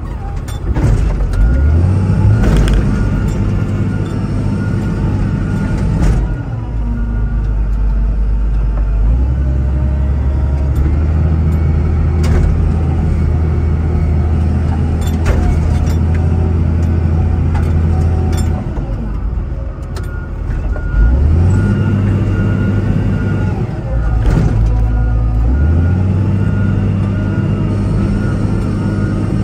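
Diesel engine of heavy earthmoving equipment running loud and close, revving up and dropping back several times as the machine works, with a few sharp knocks along the way.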